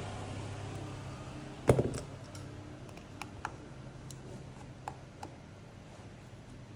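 A few light clicks and one louder knock about two seconds in, over a low steady hum that slowly fades.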